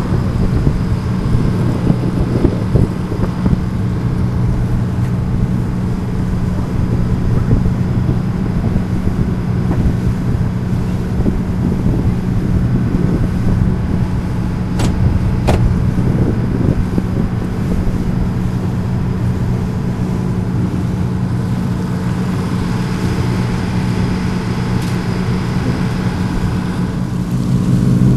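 Ferry's engine running at a steady cruising pitch, a low hum under the rush of water and air on deck. Two short clicks come near the middle.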